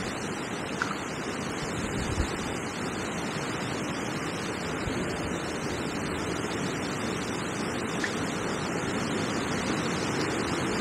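Steady rush of gale-force wind mixed with river water flowing.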